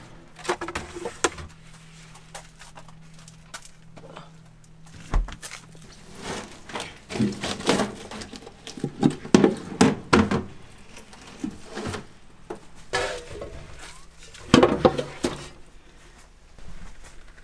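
Kitchen handling noise: an irregular run of knocks, clicks and thuds as plastic food tubs are handled and set down and frozen blocks are put into a pot.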